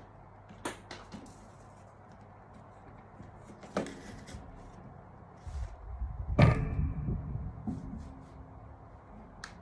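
Handling noise from wiring work on a bench: scattered light clicks and rustling of wires, with one louder knock and a brief low rumble a little past the middle.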